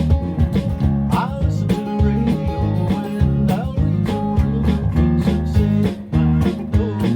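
Country-folk band music led by strummed acoustic guitar, with a steady rhythm and a low bass line.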